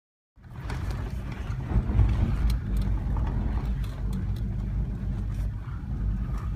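Land Rover Discovery 3 driving slowly over a rough dirt track, heard from inside the cabin: a steady low engine and road drone with scattered knocks and rattles. It starts about half a second in.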